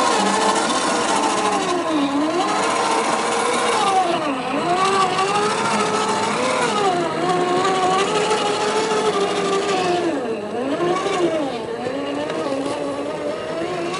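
The electric motor and gearbox of a 1/10-scale RC4WD Trail Finder 2 rock crawler whine as it crawls over rocks. The pitch rises and falls with the throttle and dips low several times.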